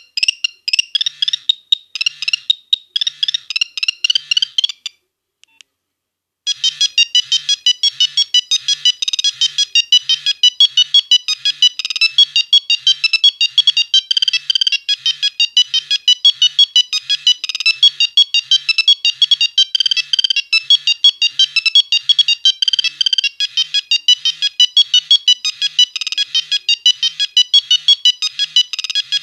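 Nokia 1101 mobile phone playing its built-in monophonic ringtones as rapid staccato electronic beeps. One melody stops about five seconds in, and after a short pause a second, faster melody starts and plays on.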